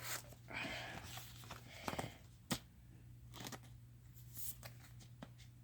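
Faint rustling and sliding of a trading card being slipped into a plastic card sleeve, with a few soft taps and one sharp click about two and a half seconds in.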